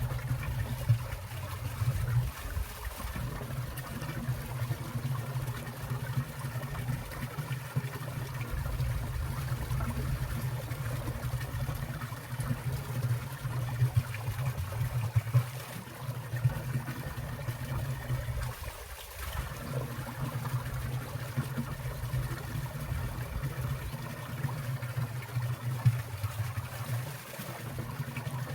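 Water of a winter valley stream trickling and falling among icicles: a steady flow with frequent small splashes of dripping water.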